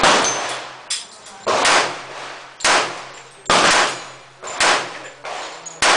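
A semi-automatic pistol fired in slow, steady succession: about seven shots roughly a second apart, each followed by a ringing echo that dies away before the next shot.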